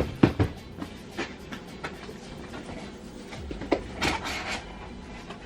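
Cardboard display case being handled and opened by hand: a few sharp knocks at the start, then scattered taps and clicks, with a short crinkly rustle about four seconds in.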